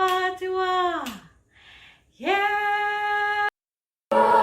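A single voice singing held notes. The first note slides down and dies away about a second in, a short breathy sound follows, then a second steady note starts about two seconds in and cuts off abruptly.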